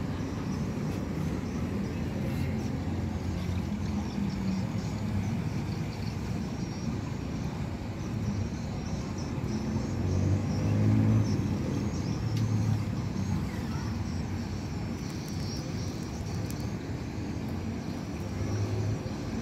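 A steady low engine rumble that swells briefly about ten seconds in, with faint high chirps above it.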